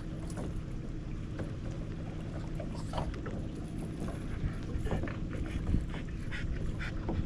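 A dog panting, with short irregular breaths, over the steady low hum of a fishing boat's motor.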